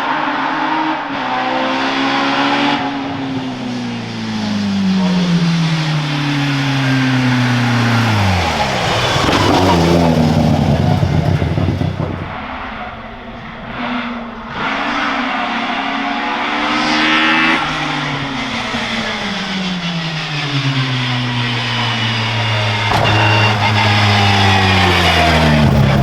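Hill-climb race cars going past one after another, two in turn. Each engine's note falls over several seconds as the car goes by and slows.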